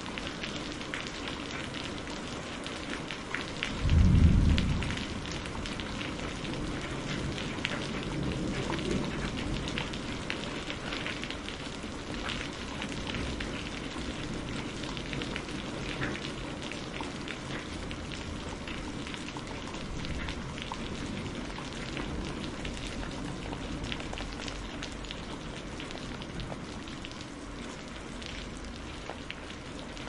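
Steady rain with many distinct drops hitting a surface. About four seconds in, a short, loud, low thunderclap is followed by a quieter low rumble that swells and fades over the next several seconds.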